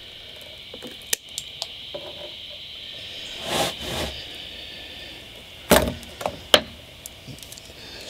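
Wire cutters snipping insulated electrical wires to length: a few light clicks early on, some handling rustle, then two sharp snaps about six seconds in.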